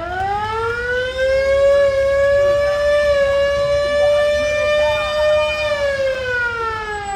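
Police SUV's siren sounding one slow wail: the pitch rises, holds steady for about five seconds, then falls away near the end.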